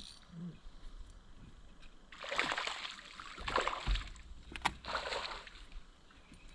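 Water splashing in three short bursts about a second apart, with one sharp click between the second and third.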